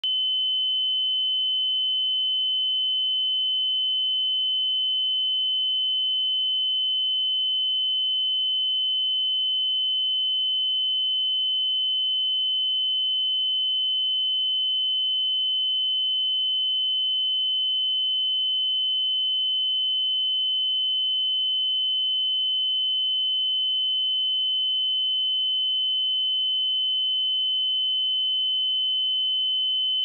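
A pure 3043 Hz sine-wave test tone, one steady high-pitched note held without change.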